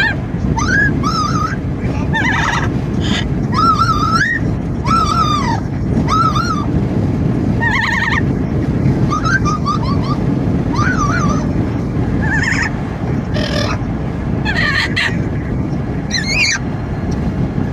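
Amazon parrot calling over and over with short rising and falling whistles and harsher squawks, about one a second, against the steady low rumble of wind and road noise in a moving car.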